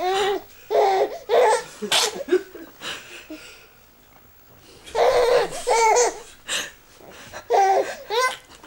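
Baby girl laughing in repeated high giggling bursts, falling quiet for a couple of seconds midway before laughing again.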